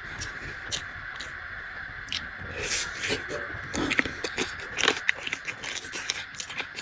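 Close-up eating sounds: chewing and wet mouth smacks, with irregular crisp clicks that come more often in the second half.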